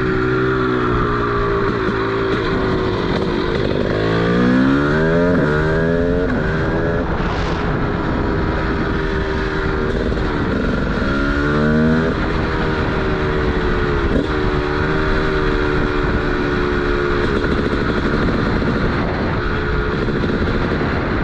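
TM SMR 300 two-stroke single running through its DBR exhaust, mostly steady, with the revs climbing twice, about four and ten seconds in, then dropping back.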